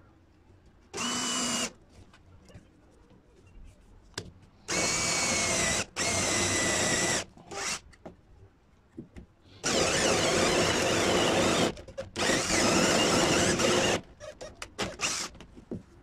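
Electric drill run in about five short bursts, each starting and stopping abruptly, with a whine through each. The bursts last one to two seconds, the longest near the end.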